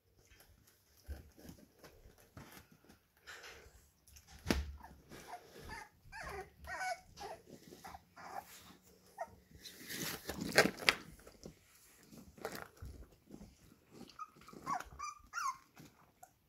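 Puppies about 25 days old whimpering and squeaking in short, high, bending calls, with a louder noisy burst about ten seconds in.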